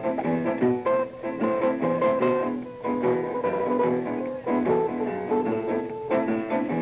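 A jazz trio of guitar, double bass and piano playing, with the guitar to the fore in a quick succession of plucked notes. It is a 1954 live recording, so it has little treble.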